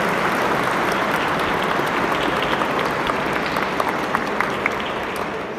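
A congregation applauding, a dense wash of clapping that slowly thins out, with separate individual claps standing out in the second half as it dies away.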